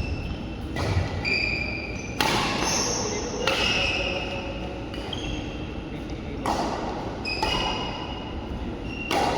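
Badminton rally in an echoing hall: six sharp racket strikes on the shuttlecock, unevenly spaced a second or more apart, with short high squeaks of shoes on the court between them.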